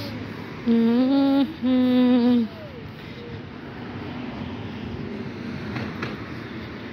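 A person close to the microphone hums two long held notes, one right after the other, about a second in. The second note slides down as it ends.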